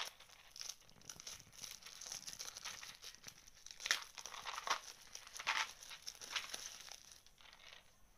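Thin plastic shrink-wrap being peeled and torn off a clear plastic screwdriver-bit case, crinkling irregularly with a few louder sharp crackles partway through.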